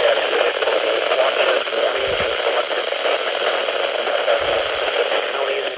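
Steady radio static hiss from a weather-radio receiver, a band-limited rushing noise with no voice clearly audible through it.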